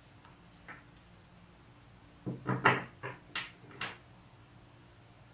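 A quick series of about six short knocks and clatters, packed into under two seconds a little past the middle.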